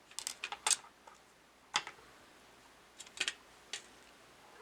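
Small fidget-pen parts clicking and tapping together as they are handled and fitted: a few quick clicks in the first second, a single click a little later, then a short cluster of clicks and one more near the end.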